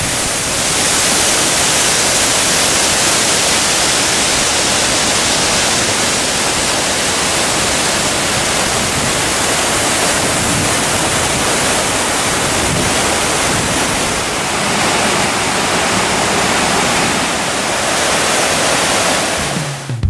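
Golling waterfall and the white-water mountain stream below it: a loud, steady rush of falling and tumbling water.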